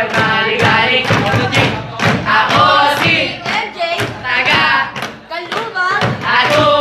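A group of young voices singing together, with a steady beat of thumps underneath.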